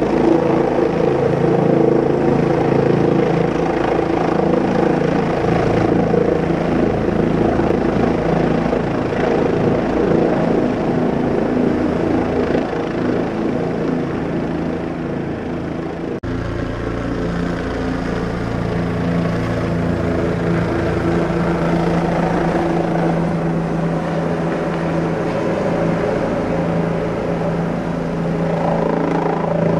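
Small rotorcraft's motors and rotors whirring steadily as it flies, heard from its onboard camera, with several steady humming tones. The tones shift suddenly about halfway through, then hold steady again.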